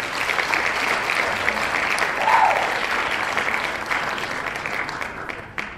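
Crowd applause, many hands clapping, starting suddenly and fading out near the end, with a short rising-and-falling cry about two seconds in.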